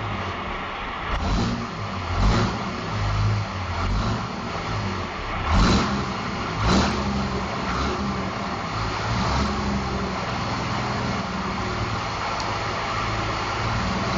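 5.9-litre 12-valve Cummins inline-six diesel running steadily at low revs, heard from inside the cab, with several sharp knocks over the steady drone.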